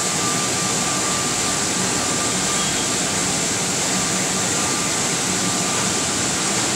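Blower of a cooling blower table running steadily, a constant rushing of air with a faint steady whine, cooling the mould of a manual cast-on-strap (COS) machine for lead-acid batteries.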